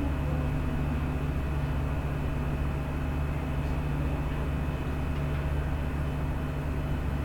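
Steady low mechanical hum with a faint thin high whine above it, unchanging throughout.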